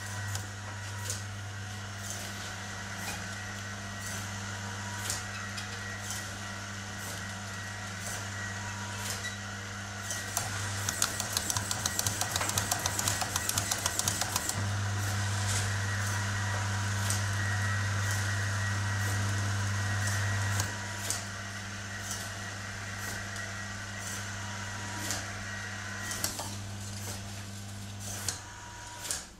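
Large motorized office window blinds running with a steady motor hum, while small servo motors click against their wall switches at irregular moments, about once a second. Midway there is a rapid rattling clatter for about four seconds, and then the hum grows stronger for several seconds.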